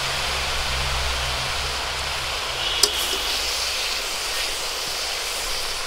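Chopped taro stems steaming and sizzling with a little water in a hot metal wok over a wood fire, a steady hiss, with a single sharp clink of the metal spatula against the pan a little under three seconds in.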